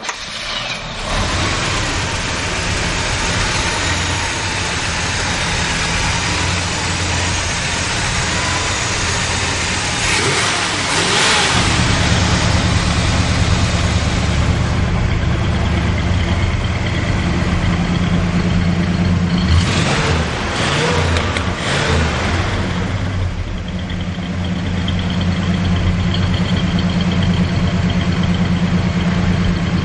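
1971 Oldsmobile 442's 455 V8 idling steadily, revved once about ten seconds in and given a few quick blips around twenty seconds in, the revs rising and dropping back to idle each time.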